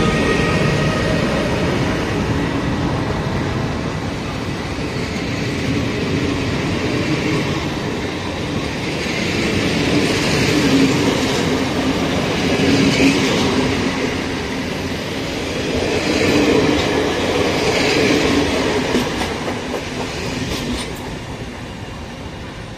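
GYSEV passenger train, hauled by a Siemens Vectron electric locomotive, departing past with its coaches' wheels running on the rails, the noise swelling every few seconds. A thin steady whine dies away in the first couple of seconds, and the whole sound fades near the end as the last coach pulls away.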